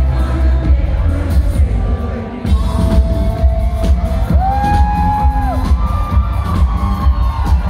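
Live electropop band playing loud, with a heavy thumping bass beat. The beat drops out for a moment about two seconds in and comes back, and a long held note sounds a little past the middle.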